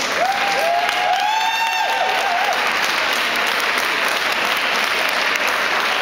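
Ringside crowd applauding steadily, with a few held, high-pitched calls over the clapping in the first couple of seconds.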